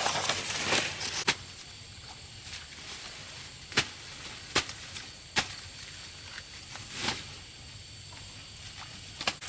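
Rustling, then several single sharp snaps or knocks at irregular intervals, with another short rustle between them.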